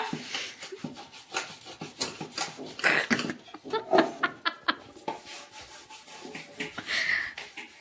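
Dishes and steel utensils clattering and knocking at a kitchen sink and dish rack, with short bursts of a woman's laughter.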